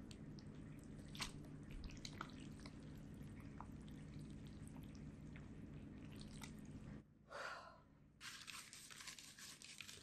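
Cooked spaghetti in a creamy sauce being lifted and tossed in a bowl: faint wet squelches and soft clicks over a low hum. About seven seconds in this gives way to a scratchy rustling, a plastic bag rubbing butter over a baking dish.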